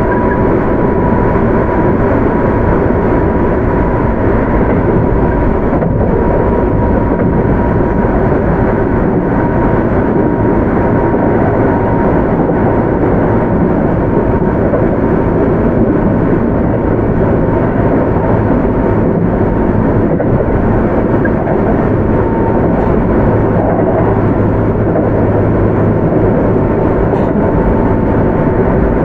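Keio 8000 series electric train running at speed, heard from inside the car: a steady rumble of wheels on rail with a thin whine that sinks slightly in pitch.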